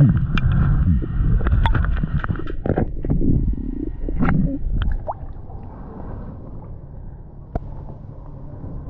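Underwater sound through an action camera's housing as a spearfisher swims: a low water rush and gurgle with scattered clicks and knocks, settling to a quieter steady wash after about five seconds.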